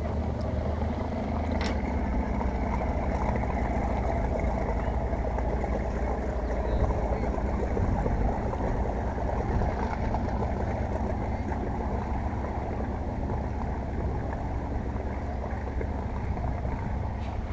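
Outboard motor of a small bass boat running steadily as the boat motors away across the water, growing a little fainter toward the end.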